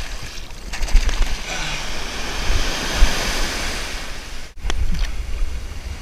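Ocean surf breaking and washing up the beach, with wind buffeting the microphone and close splashing of water about a second in. The sound cuts out for an instant about four and a half seconds in.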